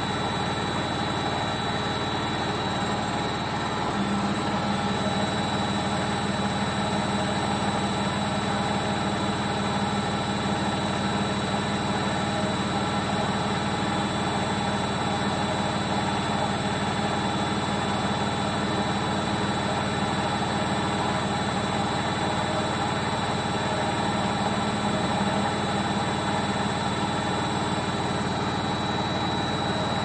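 Logik L712WM13 front-loading washing machine on its final spin, the drum turning at speed with a steady mechanical drone and a low hum, growing slightly louder about four seconds in. The noise comes from worn drum bearings.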